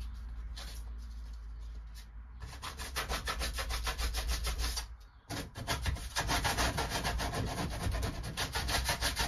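Rapid back-and-forth rubbing of a hand-held pad against the inner panel of a van's sliding door, about six strokes a second, in two runs with a short break about five seconds in.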